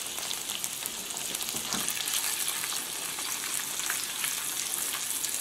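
Boiled potato pieces frying in hot oil and butter in a pan: a steady sizzling hiss with scattered small crackles.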